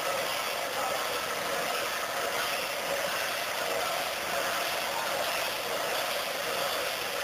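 Steady hubbub of a large festival crowd, an even wash of noise with no clear voices or beat.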